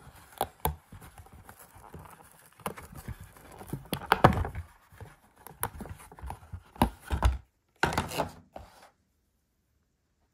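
Hands handling small toy figures and their plastic packaging: crinkling, tearing and scraping, with a string of sharp taps and knocks. The sound cuts off suddenly near the end.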